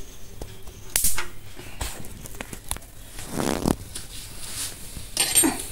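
Irregular light clicks and handling noise from a stainless steel gas cooktop being touched, with a short rasp about three and a half seconds in.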